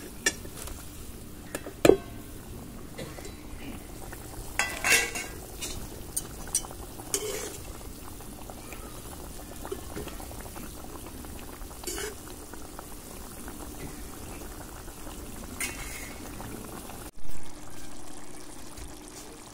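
Thin fish-curry gravy boiling steadily in a metal kadai, with a few sharp clinks and scrapes of metal utensils against the pan as fried pabda fish are slid in and stirred. The loudest clink comes about two seconds in.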